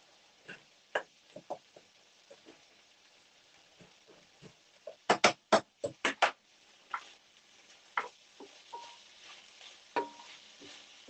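A spoon stirring in a frying pan, scraping and knocking against it in scattered taps, with a quick run of about six sharp knocks around the middle.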